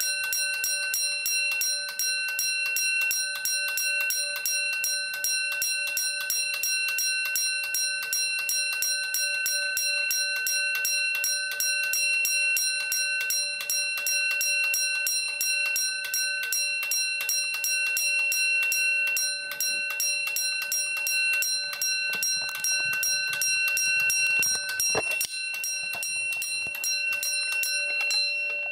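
An 1800s 'Fire Cry' spring-wound fire alarm bell ringing continuously, its clockwork hammer striking the gong in a rapid, even rattle as the wound spring runs down. A few low knocks of handling come near the end, and the strikes stop right at the close, leaving the gong ringing on.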